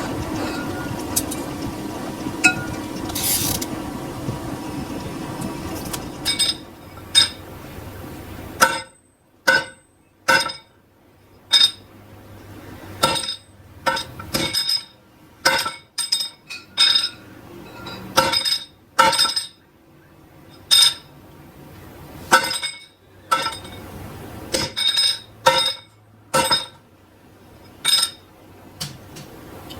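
A steady workshop machine noise stops about six seconds in. It is followed by a long run of sharp, ringing metal-on-metal strikes, irregular but roughly one a second, like steel being hammered.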